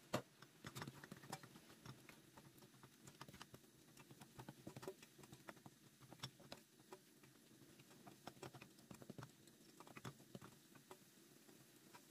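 Faint, irregular light clicks and taps of kitchen handling, with one sharper knock right at the start.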